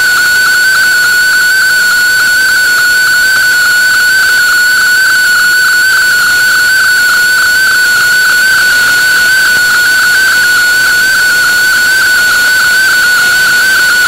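Shortwave receiver audio of the DigiDX MFSK32 digital broadcast from WRMI on 15770 kHz during a picture transmission: a single tone near 1500 Hz, wavering slightly in pitch as it carries the colour image data, over a steady hiss.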